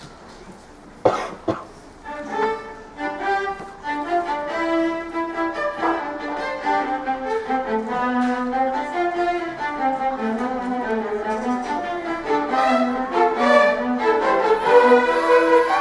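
A string orchestra of violins, violas and cellos starts playing about two seconds in, a bowed piece of held, overlapping notes that grows fuller. Just before it begins, two short sharp sounds about a second in, half a second apart.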